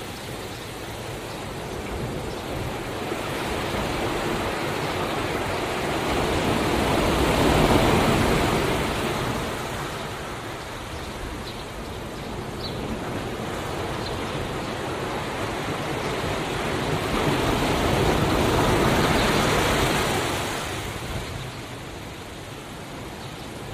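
Ocean waves surging in and drawing back on a shore, a continuous wash of surf. Two waves swell up and fade away, about eleven seconds apart.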